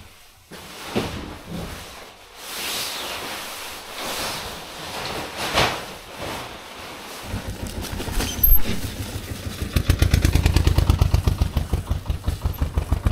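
Tent fabric rustling and tent poles clattering as a dome tent is taken down. About seven seconds in this gives way to a fast, even low pulsing rumble while a loaded touring bicycle is ridden on asphalt, with one sharp knock a little later.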